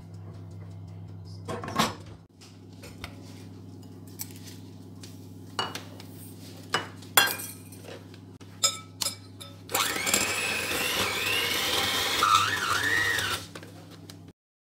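A few sharp knocks and clinks of kitchenware over a steady low hum. About ten seconds in, an electric hand mixer starts, its beaters creaming butter and sugar in a glass bowl. It runs for about three and a half seconds and then stops.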